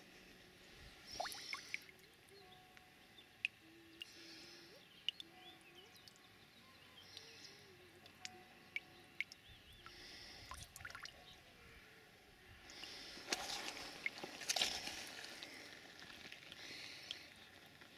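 Faint outdoor background with scattered small clicks and water drips from wet hands handling a tadpole, and a louder spell of rustling and splashing about thirteen seconds in.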